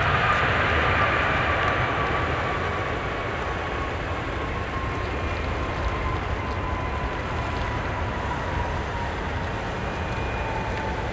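Airbus A320's jet engines on the landing roll just after touchdown: a rumbling roar that eases off over the first few seconds as the engines spool down, with a whine that slowly falls in pitch.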